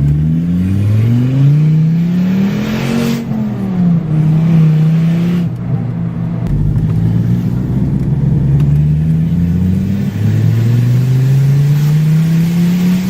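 Volvo S40 T5's turbocharged 2.5-litre inline-five accelerating through the gears: its pitch climbs for about three seconds, drops at a shift, holds nearly level with a slow rise, drops again about ten seconds in and climbs once more. The exhaust is very loud from a leak in the flex pipe just after the turbo.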